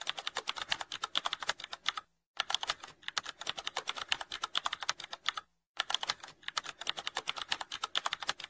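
Rapid computer-keyboard typing: a fast, steady run of keystrokes broken by two short pauses, about two seconds in and about five and a half seconds in.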